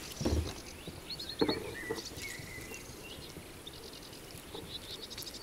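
Quiet outdoor ambience with short trains of high, rapid chirps, most likely small birds singing, repeating a few times. A soft thump and a couple of light clicks in the first second and a half come from handling the rod and the caught perch in the inflatable boat.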